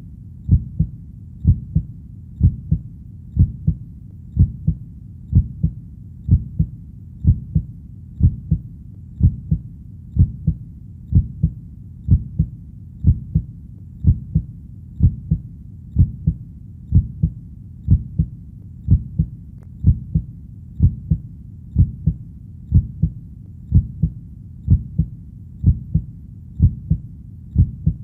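Heartbeat beating steadily in the lub-dub rhythm, a low double thud about once a second, over a steady low background noise.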